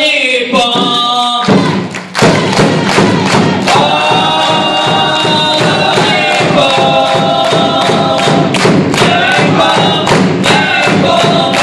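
Crowd of football supporters singing a chant in unison over a steady beat of clapping and thumps, the beat coming in about a second and a half in.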